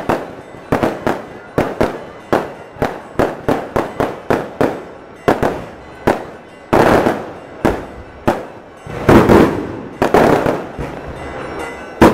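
Aerial fireworks display: a rapid, irregular string of sharp bangs from shells bursting overhead. Heavier booms with crackle come about halfway through and again a couple of seconds later.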